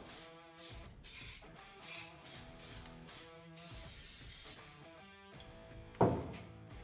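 Paint sprayed onto a car body in about six short bursts of hiss, the last about a second long, over background guitar music. A single sharp knock with a short ringing tail comes about six seconds in.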